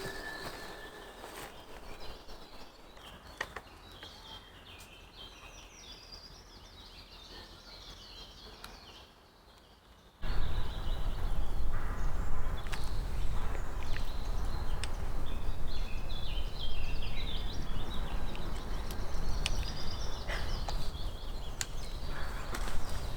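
Small birds singing, repeated short chirping phrases throughout. About ten seconds in, a loud, steady low rushing noise starts abruptly and continues under the birdsong.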